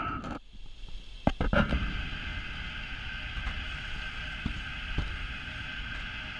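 Steady hiss of a thin water jet spraying from a hose, with a few sharp knocks and taps in the first two seconds and a couple of fainter ones later.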